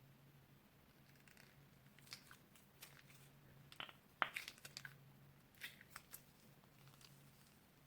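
Crunchy slime being handled, giving a scatter of short, sharp crackles and clicks, the loudest a little over four seconds in.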